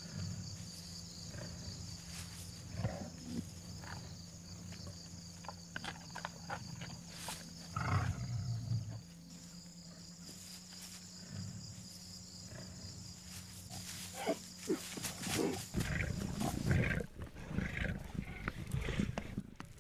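Lionesses growling over a freshly killed zebra. The growls are low and rough, with one loud spell about 8 seconds in and a dense run of growls from about 14 seconds in.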